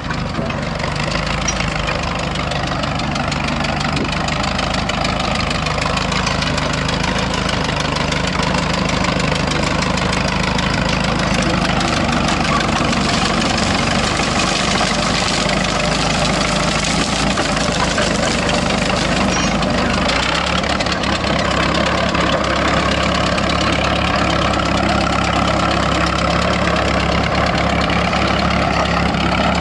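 Caterpillar Twenty crawler tractor's four-cylinder engine running steadily as the tractor drives over dirt. The engine note changes about twenty seconds in.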